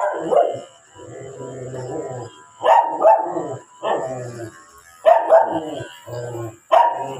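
A matted dog being shaved with electric clippers barks about five times at irregular intervals, each bark short and loud, with quieter, lower sounds in between.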